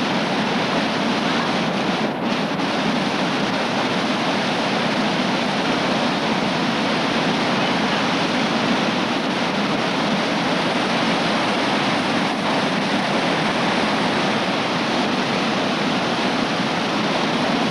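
Whitewater of a large river rapid in flood, a steady, loud, unbroken rush of churning water.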